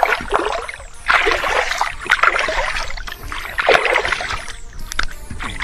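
Water splashing in short irregular bursts, about five of them roughly a second apart, like water being stirred or scooped at the edge.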